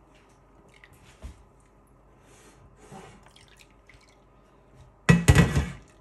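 Water dripping and trickling from a metal mesh strainer of rinsed grated potato into a bowl of starchy water, faint and scattered. About five seconds in comes a much louder wet splash and rustle lasting under a second.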